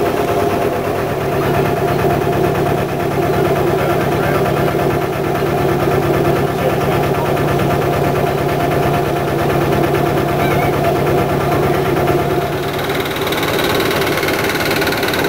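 A narrowboat's engine running steadily as the boat cruises along the canal, with an even, rapid pulsing beat.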